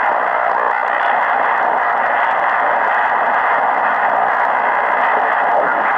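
Tecsun PL-680 shortwave receiver in lower-sideband mode, its speaker giving a steady rush of static as it is tuned up through the 40-metre amateur band. The noise level is very high, and the hiss is cut off above about 2 kHz by the narrow sideband filter.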